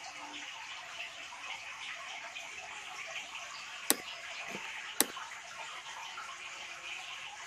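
Steady hiss with two sharp clicks about a second apart midway through.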